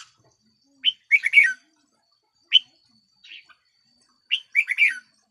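Red-whiskered bulbul singing: a quick phrase of several notes about a second in, a single note in the middle, and another quick multi-note phrase near the end.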